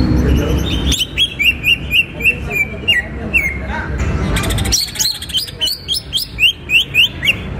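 Greater green leafbird (cucak ijo) singing in two runs of quick, sharp, repeated chirping notes, about four a second, with a short break between the runs.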